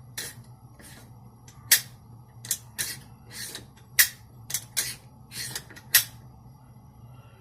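A series of about a dozen sharp metal clicks and clacks from AR-15 bolt and gun parts being handled and set down, with three louder clacks about two seconds apart.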